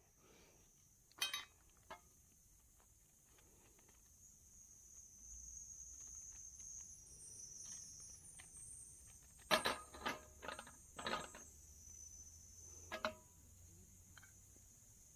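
Insects chirring steadily in a high, even drone. A few light knocks and clatters of things being handled, the loudest cluster about two-thirds of the way through.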